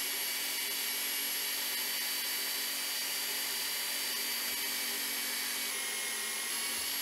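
Small bench belt sander running steadily, grinding down the end of a mounting screw that is too long.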